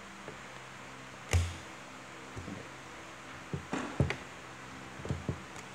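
Playing cards being handled and laid down on a table: one sharp knock about a second in, then a run of light taps and clicks.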